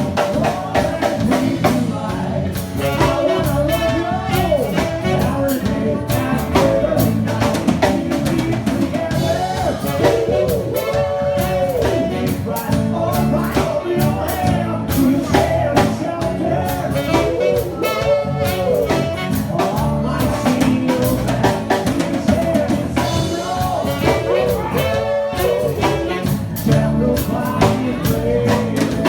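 A band playing a song, with a singer over drum kit and guitar.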